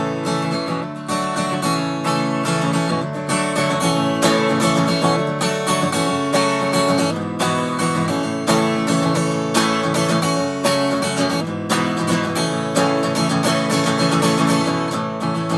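Acoustic guitar playing an instrumental break in a folk song, strummed in a steady rhythm with no singing.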